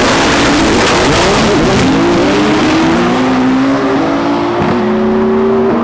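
Drag-racing car at full throttle, very loud, its engine note wavering for the first couple of seconds and then holding and slowly rising, with a short dip about four and a half seconds in like a gear change.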